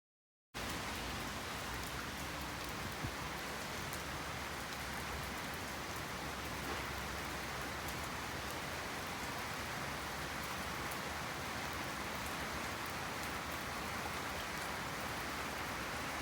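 Steady rain falling: an even hiss with faint scattered drop ticks. It cuts in suddenly about half a second in.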